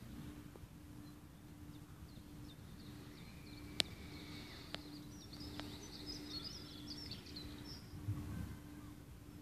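Quiet open-air ambience in which small birds chirp and twitter in quick high notes for several seconds in the middle. A single sharp click sounds about four seconds in, followed by two fainter ones, and there is a low bump near the end.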